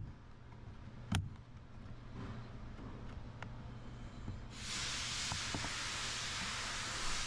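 A sharp click about a second in and a few faint clicks, over a low steady hum; about four and a half seconds in a steady hiss starts abruptly and carries on.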